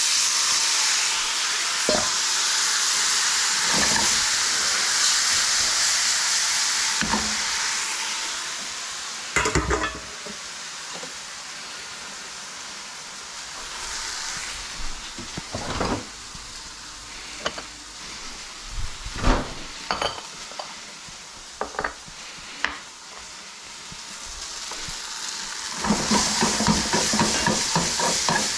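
Boiled spaetzle dumplings hit hot butter in a skillet and sizzle loudly, the hiss fading over several seconds. Scattered knocks of a utensil against the pan follow. Near the end, louder sizzling with quick repeated clatter as the spaetzle is stirred and tossed to crisp.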